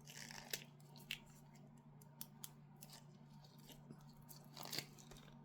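Faint, irregular small clicks and ticks, about a dozen, the loudest about half a second, a second and nearly five seconds in, over a steady low hum.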